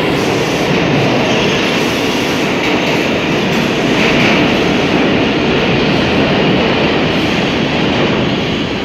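R179 subway train leaving the station and running into the tunnel: a loud, steady noise of wheels on rail that eases off a little near the end.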